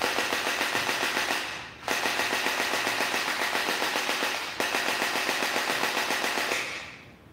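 MP5K-style electric gel ball blaster firing on full auto: a fast, even rattle of shots in three long bursts, the second running almost straight into the third.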